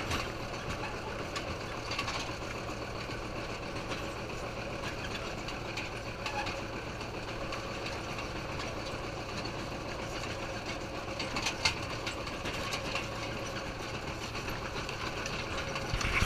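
Farm tractor engine running steadily while towing a ride wagon, heard from the wagon, with a few sharp clicks about eleven seconds in.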